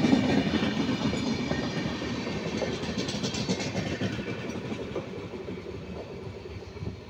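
Rajdhani Express passenger train running through at speed, a rumble of coaches with the wheels clicking over the rail joints. It fades steadily as the last coach passes and the train draws away.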